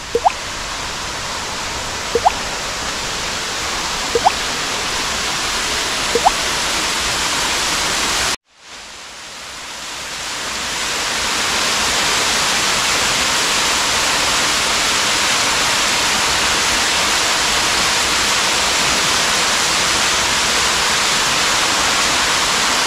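Waterfall rushing, a steady loud hiss of falling water. In the first part a short rising chirp sounds about every two seconds. The sound breaks off for a moment about a third of the way in, then comes back louder.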